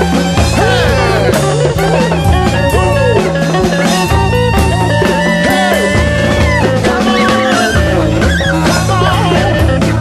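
Instrumental band music without vocals: a lead line of sliding, bending notes over a stepping bass line and drum kit.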